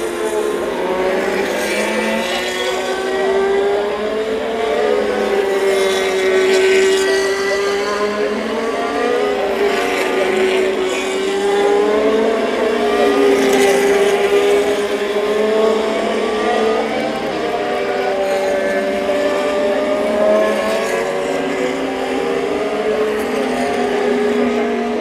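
Formula 1 cars' 1.6-litre V6 turbo-hybrid engines running one after another on a soaked track during the formation lap. Several engine notes overlap and keep rising and falling in pitch.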